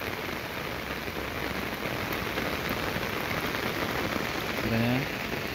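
Steady heavy rain falling on flooded ground and standing water.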